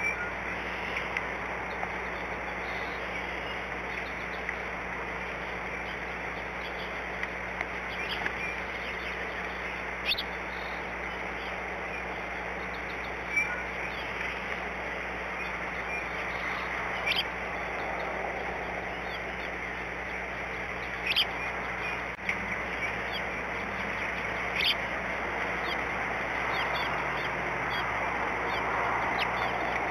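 Steady hiss of rain, with a sharp tap every few seconds and the hiss growing a little louder near the end.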